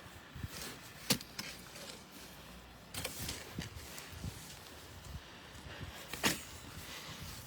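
Snow shovel digging into deep snow: three sharp scraping strokes a couple of seconds apart, about a second in, at three seconds and near six seconds, with fainter crunches between.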